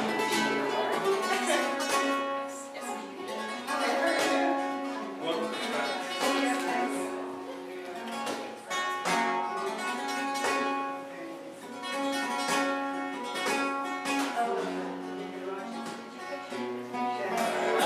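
Solo flamenco guitar: plucked runs of notes broken by strummed chords every few seconds.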